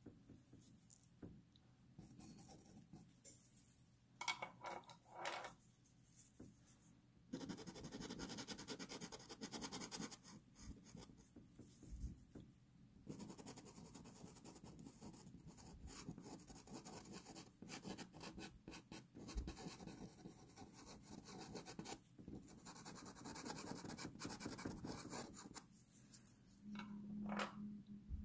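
Pastel pencil scratching and rubbing across textured paper in many quick strokes. The strokes are sparse at first and turn dense and continuous from about seven seconds in.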